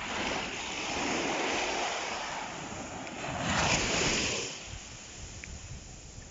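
Small, calm sea waves breaking and washing up a sandy shore, swelling in and falling back, with the loudest wave breaking about three and a half seconds in before it dies down.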